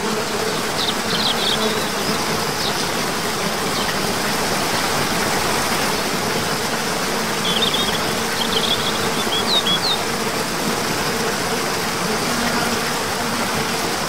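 Cascading waterfall rushing steadily into a pool, with small birds chirping briefly about a second in and again near the middle.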